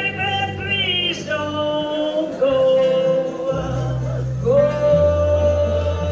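Blues music: a singer holding long notes, gliding up into each one, over low, steady bass tones.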